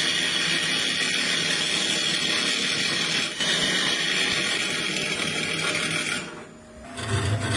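A power tool running steadily, cutting out briefly near the end.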